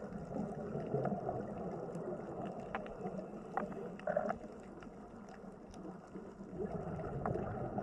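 Water sloshing and gurgling in a steady low rush, with scattered small clicks and a brief splash about four seconds in.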